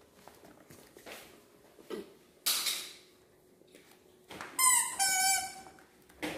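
Baby monkey giving two high squeals in quick succession about two-thirds of the way in, the first falling in pitch, after a short breathy hiss about halfway through.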